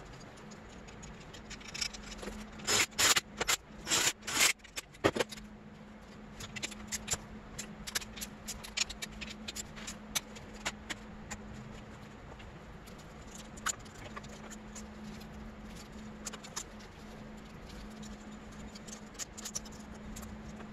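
Metal parts being handled and seated as an aluminium cam holder and its bolts are fitted over the camshaft of a Honda CRF250R cylinder head. A quick run of sharp clinks comes about two to five seconds in, followed by scattered lighter ticks and scrapes, over a steady low hum.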